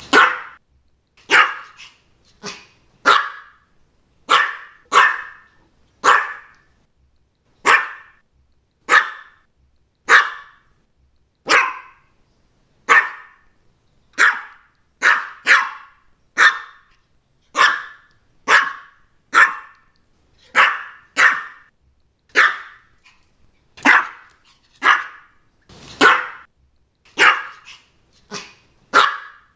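Maltese dog barking over and over: short single barks about once a second, now and then two in quick succession.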